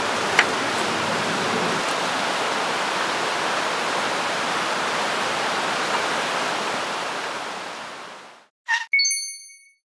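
Steady rush of running water from a stream, with a couple of faint clicks, fading out about eight seconds in. A single high bell-like ding follows near the end.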